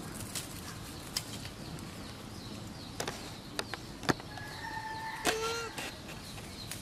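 Forest ambience with a handful of sharp, scattered clicks and crackles. About four and a half seconds in comes a short, steady whistled animal call, followed by a brief lower call.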